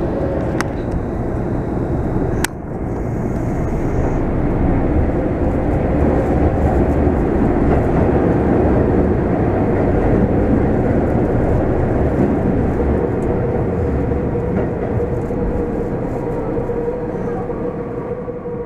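Tokyo Metro Fukutoshin Line subway train running through a tunnel, heard from inside the car: a steady, loud rumble of the train on the rails. A sharp click comes about two and a half seconds in, and a steady hum grows out of the rumble in the second half.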